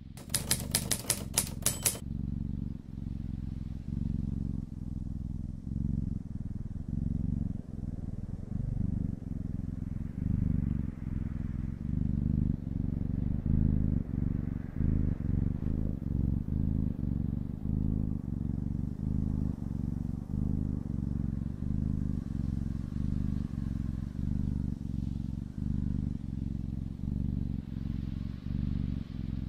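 Domestic cat purring close up: a steady low rumble pulsing in an even in-and-out rhythm. In the first two seconds a quick run of about nine sharp clicks sounds over it.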